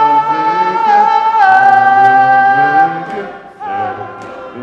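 Church congregation singing a gospel song a cappella in several voice parts, holding one long note for about three seconds, then dropping to a softer line near the end.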